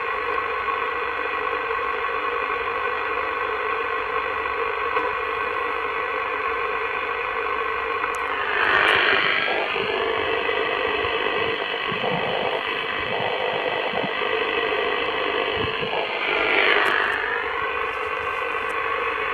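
CB transceiver in upper sideband on 27.595 MHz, its speaker putting out a steady hiss of band noise with faint steady tones through it and no voice answering the call. Two brief louder swishes come through, about nine and seventeen seconds in.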